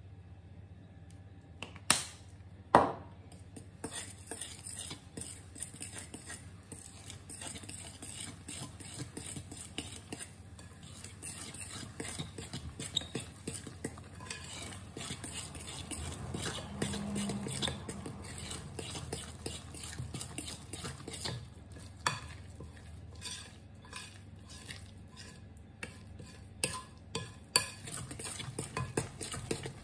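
A spoon stirring thick oat-flour and yogurt batter in a glass mixing bowl, with a steady run of small scrapes and clicks against the glass. Two sharp knocks come about two seconds in and are the loudest sounds, and a few more knocks come near the end.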